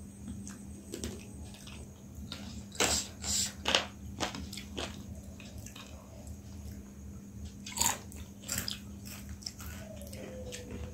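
Close-miked eating of chicken wings and potato chips: chewing and biting, with loud sharp crunches about three seconds in and again near eight seconds.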